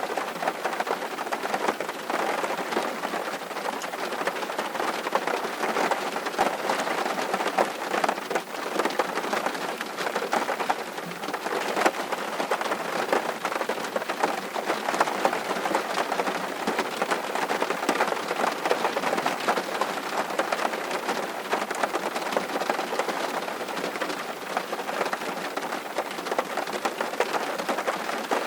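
Steady rain falling on a surface, a dense even patter of drops.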